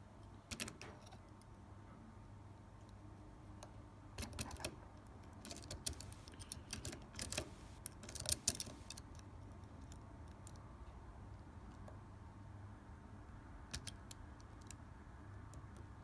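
Light metallic clicks and scrapes of a dimple pick and tension tool working in the keyway of a World Ball brass dimple lock cylinder, in scattered bunches, busiest in the middle.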